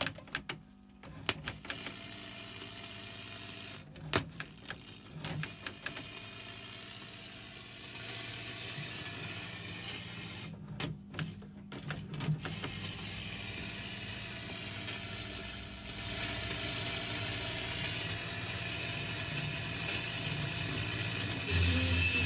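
Collins R-390 shortwave receiver being tuned between stations, its audio through a JBL active speaker: steady static and band hiss with crackles and clicks, briefly cutting out midway. Near the end a station's signal comes in with a low steady hum.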